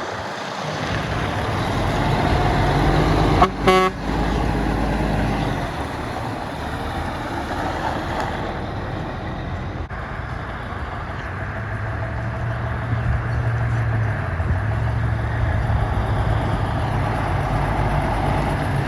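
Road traffic with heavy trucks driving past, their engines running low and steady, and one short vehicle-horn toot about three and a half seconds in.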